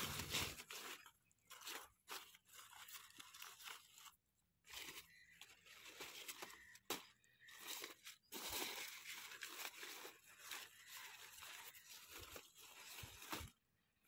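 Faint rustling of green bean leaves and vines, with crisp snaps here and there as bean pods are picked off by hand.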